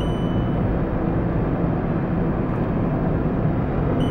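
Steady road and engine noise inside the cabin of a car driving on smooth asphalt.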